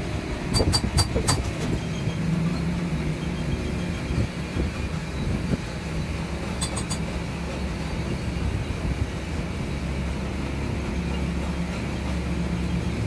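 A steady low machine rumble with a faint hum. A quick run of sharp metallic clicks comes about half a second in, and a shorter run about seven seconds in, as metal parts are handled.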